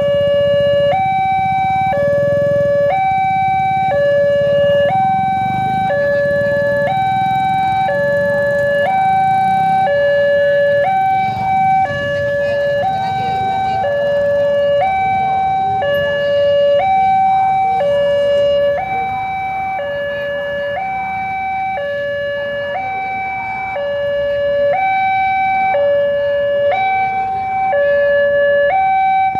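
Railway level-crossing warning alarm sounding an electronic two-tone signal that alternates between a higher and a lower tone about once a second. It warns that a train is approaching while the barriers are down.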